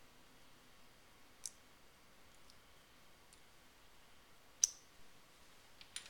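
About five faint, small plastic clicks from handling a 1x2 translucent LEGO brick and the tiny LED light board that fits into it, the sharpest about two-thirds of the way through.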